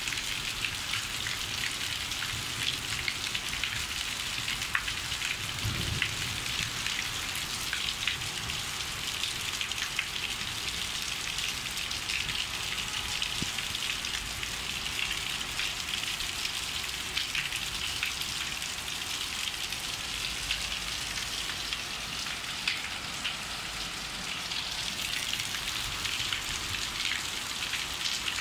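Heavy rain falling steadily onto a rooftop terrace, a dense patter of drops striking the deck and parapet.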